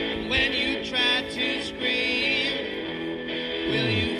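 Background music: a guitar-band song with a man singing.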